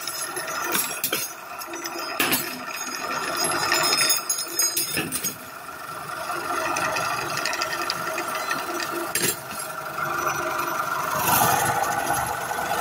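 Cutlery polishing machine running with a steady motor hum, while cutlery rattles and clinks as the pieces pass through and drop out into a plastic tray. The clattering is busiest in the first five seconds.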